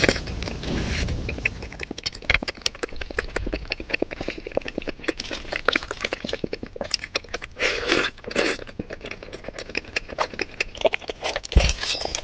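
A person chewing and biting into grilled kebab meat close to the microphone, as a dense run of small, quick mouth clicks, with a few louder bites or slurps about eight seconds in.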